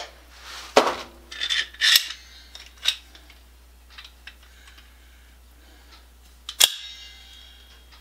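A locking welding clamp and other metal hand tools being handled: several sharp metallic clicks and clacks, with the loudest snap about two-thirds of the way through followed by a brief metallic ring.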